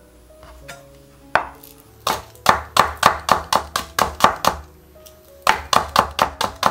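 Chef's knife slicing a Korean green onion (daepa) thinly on a bamboo cutting board. One knock, then two runs of quick chops about four a second, with a short pause between them.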